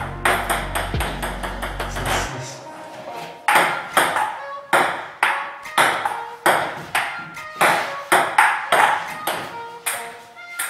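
Table tennis rally: the ball clicks off the paddles and bounces on the table, about two sharp hits a second, keeping an even rhythm.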